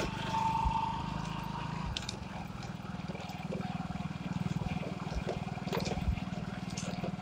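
Motorcycle engine running steadily as the bike rides slowly along, with a short high tone about half a second in.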